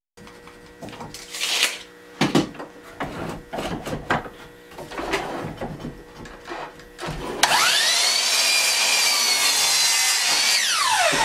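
Wooden boards knocking and shuffling on a workbench. About seven seconds in, a sliding miter saw's motor whines up to speed and runs steadily for about three seconds, then winds down with a falling whine near the end.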